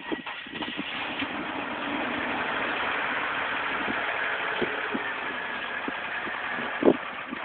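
BMW E32 730i engine and exhaust idling steadily, having caught just before. A short, sharp, louder sound stands out near the end.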